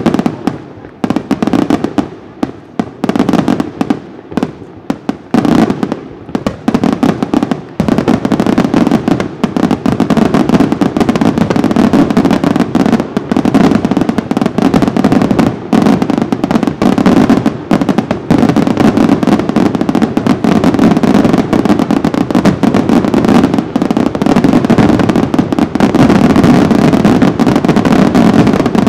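Aerial firework shells bursting: separate loud bangs with short gaps at first, then from about eight seconds in a dense, unbroken barrage of explosions.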